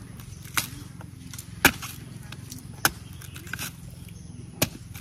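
Machete chopping into the husk of a young green coconut: four sharp chops, roughly a second or a little more apart, as the husk is cut away to open the nut.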